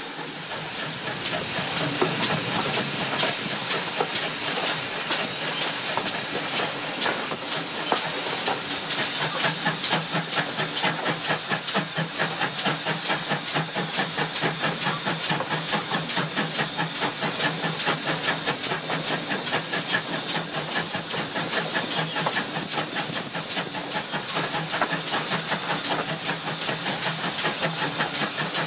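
Pannier tank steam locomotive No. 9681 working a train: a rapid, even run of exhaust beats over a steady hiss of steam, heard close up from the carriage behind it.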